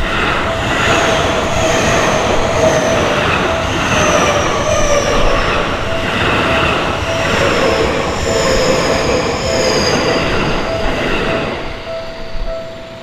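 Seibu Shinjuku Line electric train passing over a level crossing, loud and noisy for about twelve seconds with high tones gliding down above it, then fading near the end. The crossing's alarm bell keeps dinging in an even rhythm underneath.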